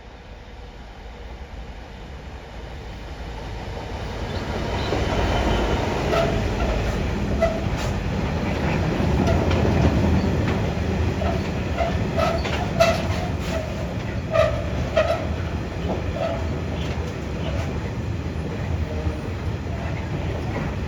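Class 66 diesel locomotive hauling a loaded stone train past, growing louder over the first few seconds. The wagons then rumble by, clattering over the rail joints, with short wheel squeals.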